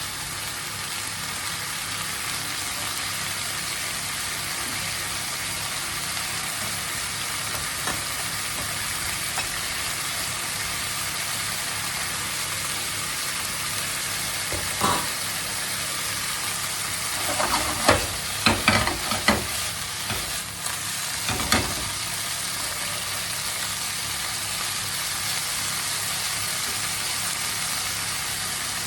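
Chicken livers sizzling steadily in hot olive oil in a frying pan, with a few short clatters of a utensil stirring against the pan around the middle.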